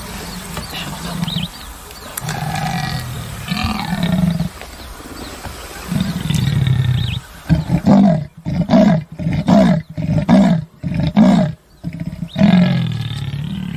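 Big cat vocalising: long, low growls, then a quick run of about eight grunts at roughly two a second, ending in another long growl.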